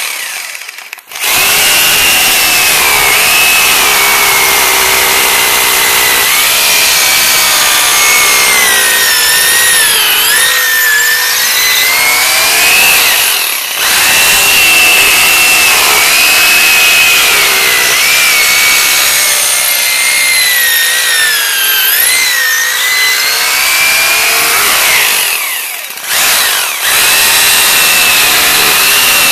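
Bosch power drill boring a long bit down into a concrete wall footing, its whine wavering in pitch as the load changes. It stops briefly about a second in, again about halfway through, and once more a few seconds before the end.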